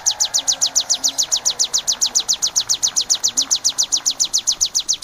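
Ciblek (prinia) song: a rapid, even run of high, sharp chirps, about ten a second, going on without a break. Underneath is a faint, even noisy wash.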